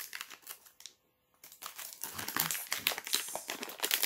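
Blind-box packaging being opened by hand, crinkling and crackling: a short burst, a brief pause about a second in, then steady crinkling.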